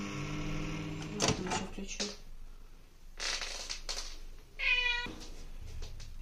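Microwave oven running with a steady hum for about two seconds, which stops among sharp clicks. Then come clicks and knocks as its door and the cabinet door are opened, and a short high squeal near five seconds in.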